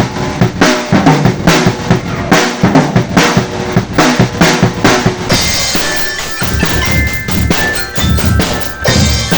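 Percussion ensemble playing loudly: snare and bass drums beat a fast, steady rhythm, and from about halfway high, bright bell-like notes join in over the drums.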